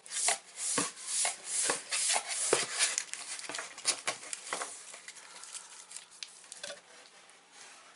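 Rummaging through packaging in a subscription box: quick rustling of paper and plastic with light clicks and knocks, busiest in the first three seconds and quieter after.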